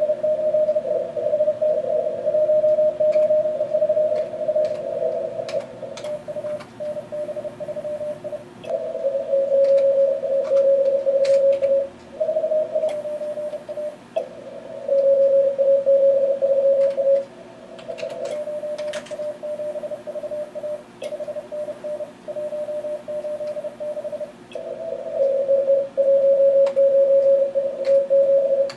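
Morse code (CW) from an Elecraft K3 transceiver during fast contest exchanges: keyed tones of several stations at slightly different pitches over steady band hiss, some stretches much louder than others.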